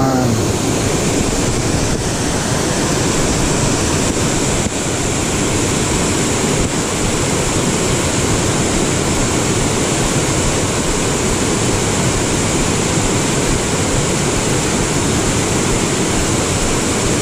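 Small waterfall pouring over a rock ledge into a creek pool: a steady, unbroken rush of white water.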